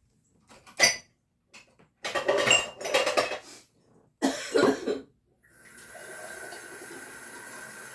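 Cups and dishes clinking and clattering while coffee is made, followed by a steady running sound for the last two or three seconds.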